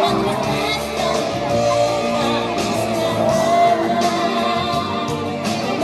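Music with a singing voice, playing steadily as accompaniment to a dance routine.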